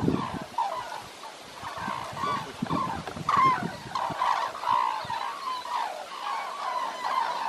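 A flock of red-crowned cranes calling as they take off and fly: many short calls, overlapping and repeated throughout.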